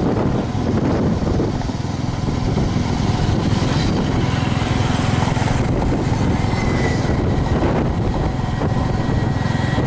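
Steady engine and road rumble heard from on board a moving road vehicle, with rushing air noise.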